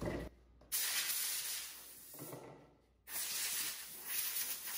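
Compressed-air blow gun on a shop air hose hissing in blasts: a brief one at the start, then two of about two seconds each, fading toward their ends. It is blowing sanding dust off freshly roughed-up 3D-printed parts before they are glued.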